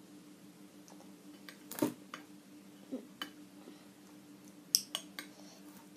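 A metal spoon clinking and scraping against a glass bowl as it is worked through a thick chocolate mixture: a handful of separate light clinks, one every second or so.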